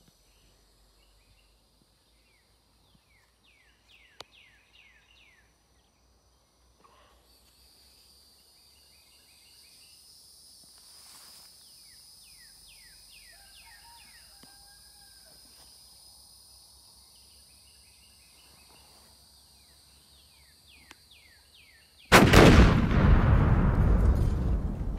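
Quiet outdoor ambience with scattered bird chirps, joined about ten seconds in by a steady high-pitched insect drone. About three seconds from the end a loud boom sound effect hits suddenly and slowly fades.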